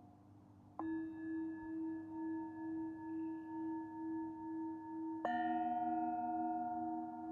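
Singing bowls struck twice, about a second in and again near the end, each note ringing on with a slow wobbling beat; the second strike adds a lower-pitched bowl to the first, which is still sounding.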